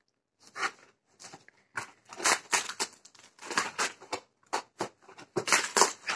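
Cardboard box wrapped in packing tape being worked open, an irregular run of crunches and crackles of cardboard and tape.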